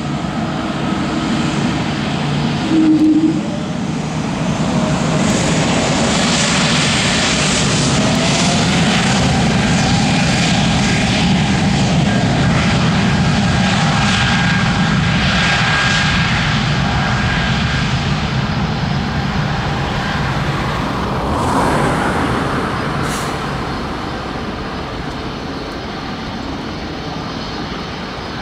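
Pratt & Whitney PW1500G geared turbofan engines of a Bombardier CS300 (Airbus A220-300) running as the airliner rolls along the runway: a steady jet noise with a rising whine about a quarter of the way in, loudest around the middle and fading as the aircraft moves away.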